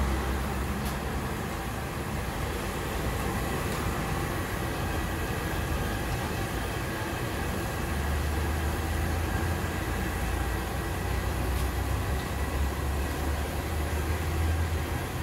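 Hot oil sizzling steadily in a large wok as battered banana pieces deep-fry. A low rumble swells about eight seconds in and again near the end, with a few faint clicks.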